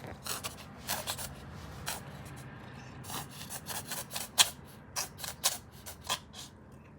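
A string of short, irregular scratchy rubbing and rasping sounds, about fifteen in all, with the loudest a little past the middle, over a low steady hum.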